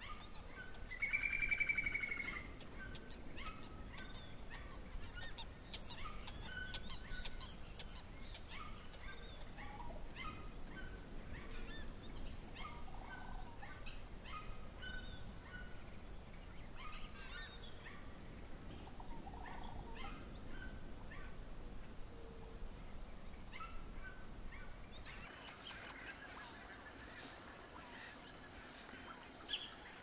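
Forest ambience: a steady high insect drone under many short, repeated bird chirps, with one loud pitched call about a second in. A few seconds before the end the insect drone changes to a different buzz.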